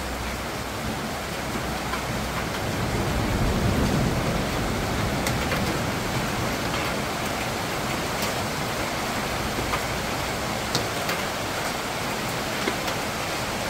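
Steady rain falling, an even hiss with occasional sharp ticks. A low rumble swells and fades about three to four seconds in.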